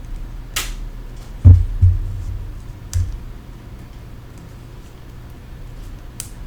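Hands working on a tablet during repair: a few sharp small clicks and two dull thumps, the loudest thump about one and a half seconds in, with a second one just after.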